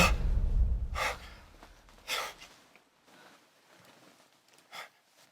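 Dramatic score dying away, then three sharp gasping breaths, about a second and a half apart, from a person jolted awake from a nightmare.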